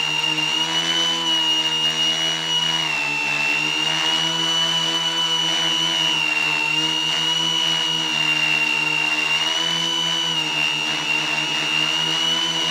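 Quadcopter's electric motors and propellers whining steadily in flight, heard close up from the camera mounted on the craft, the pitch dipping and rising slightly a few times.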